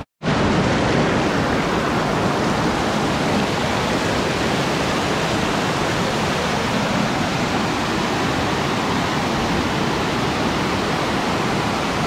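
A small waterfall of river water rushing and splashing over rocks close by: a loud, steady, even rush of water.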